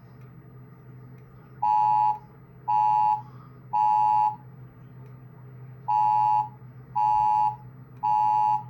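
Voice-evacuation fire alarm sounding the temporal-three (code 3) evacuation tone: two sets of three steady beeps, about half a second each, with a longer pause between the sets.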